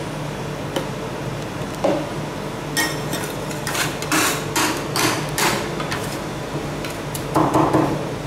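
Metal spatulas striking and chopping on the steel cold plate of a rolled-ice-cream pan: sharp clacks start about three seconds in and come as a quick, dense run near the end. A steady low hum runs underneath.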